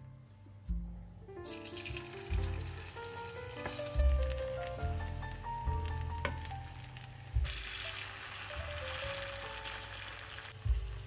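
Potato and zucchini fritter batter sizzling as it fries in hot olive oil in a frying pan. The sizzle starts about a second and a half in and is louder for about three seconds in the second half.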